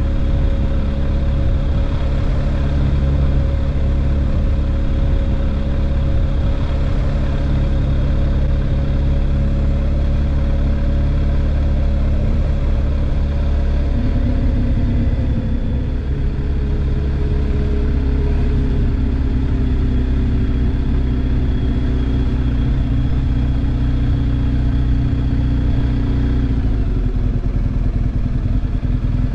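Motorcycle engine running steadily at low town speed, heard from on the bike. The engine note shifts down about halfway through and again near the end as the bike slows.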